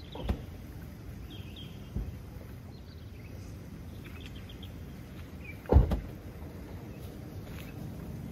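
Low steady outdoor background with faint, scattered bird chirps and a few knocks, the loudest a single thump a little before 6 s in.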